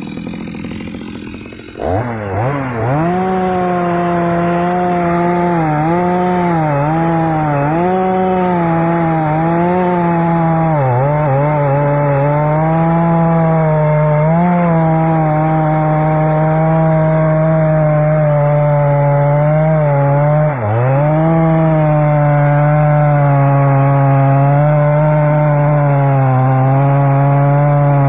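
Stihl MS 250 two-stroke chainsaw throttled up about two seconds in and cutting wood at full revs, its pitch sagging briefly several times as the chain bites under load, with one deeper dip about twenty seconds in.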